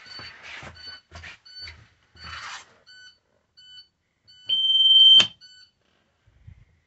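A school bus's rear reset-button alarm beeps steadily at about two short chimes a second, with thumps and rustling at first. About four and a half seconds in, the reset button is pressed: one long, loud steady beep ends in a sharp click, and the beeping stops. This is the driver's end-of-route check for children left aboard being cleared.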